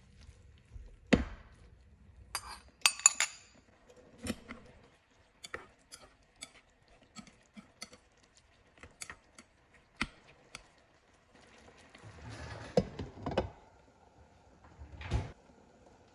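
Kitchen utensils and dishes clinking and knocking: scattered sharp taps, a quick run of clinks about three seconds in, a brief rustle-like stretch later, and a firmer knock near the end.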